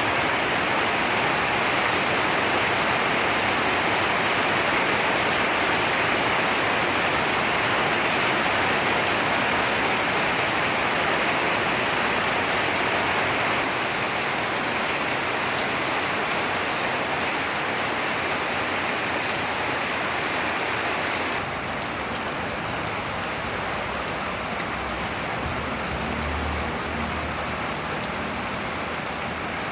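Heavy rain falling steadily, a dense even hiss of drops. It drops slightly in level about two-thirds through, and a faint low rumble comes in near the end.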